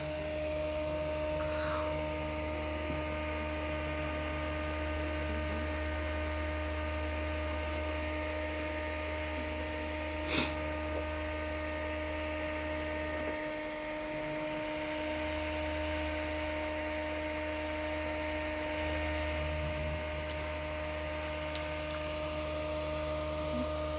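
Electric fan running with a steady motor hum, its low drone briefly dropping away around the middle; a single short click about ten seconds in.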